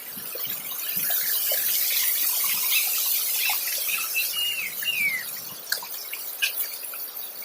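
Running water splashing and hissing, building up over the first couple of seconds and easing off after about five seconds, with a few short, high, falling chirps near the middle.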